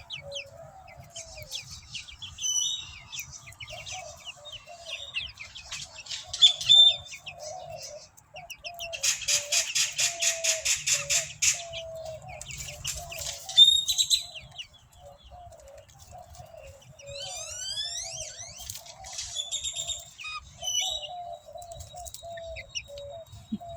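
Young backyard chickens calling in soft, wavering trills while they feed, over a busy chorus of wild birds chirping and whistling. A rapid rattling trill of about ten pulses a second runs for a couple of seconds near the middle.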